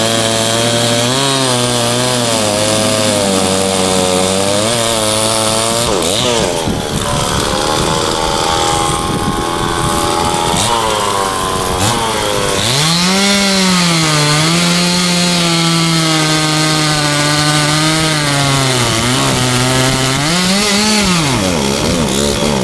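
Old McCulloch two-stroke chainsaw running hard, just adjusted at the carburetor, its engine pitch dropping and rising again and again as it is loaded and revved, likely cutting wood. It is roughest and lowest from about six to twelve seconds in, then runs higher and steadier.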